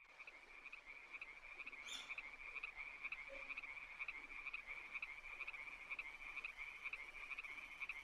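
A frog's faint, steady trill on one high pitch, pulsing rapidly without a break. There is a brief high chirp about two seconds in.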